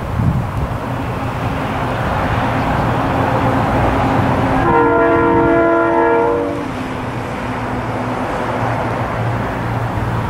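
Train horn sounding one chord-like blast of about two seconds, from a KiwiRail DX-class diesel locomotive still out of sight, over a steady rumble of the oncoming train.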